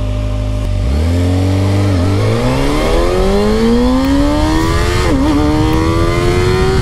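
Kawasaki Ninja ZX-6R's inline-four engine idling, then launching hard from a standstill and accelerating. Its pitch climbs steadily and dips briefly at each upshift, about two seconds in and again about five seconds in.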